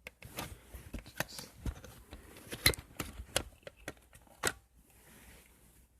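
Hard plastic clicks, knocks and light scraping from a smoke detector and its sounder base being handled. The clicks come irregularly, several a second, and stop after about four and a half seconds.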